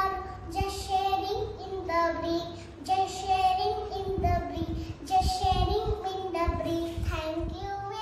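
A young girl singing a short song, holding each note in a clear sung melody, with a few low thuds about four to six seconds in.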